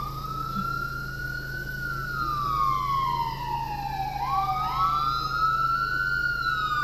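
Police sirens wailing: one wail rises quickly and sinks slowly over about four seconds, then about four seconds in two sirens start a new wail a fraction of a second apart.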